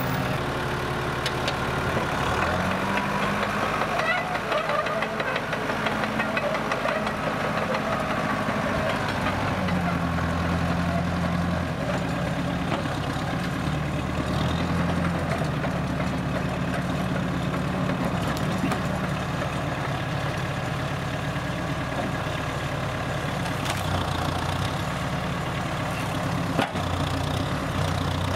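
1970 Case 350 crawler loader's engine running steadily, its speed stepping up and down several times as the machine is worked, with a single knock near the end.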